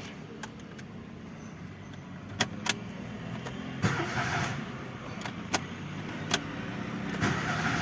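Renault 1.2 16V petrol engine running steadily with its accessory belt and timing cover removed, so the noise being hunted can be traced. A few sharp metallic clicks come through, and the running gets louder about seven seconds in.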